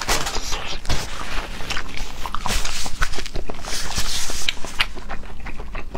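Close-miked wet chewing and lip smacking of raw scallop sashimi, a steady run of small sticky clicks.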